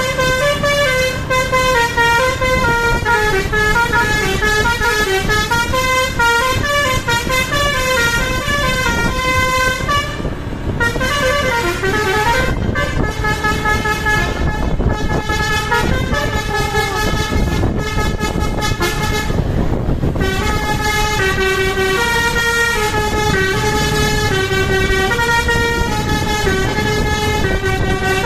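Basuri telolet multi-tone bus horn playing a tune of short stepped notes, with a brief swooping pitch slide about halfway through, over the rumble of the bus.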